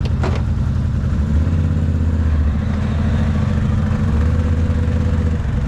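ATV engine running steadily at low revs, heard close up from the machine the camera rides on. Its low rumble swells a little twice. There is a short click right at the start.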